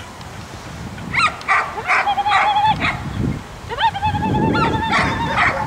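A dog whining in two long, high-pitched held cries, with a few short yelps just before the first.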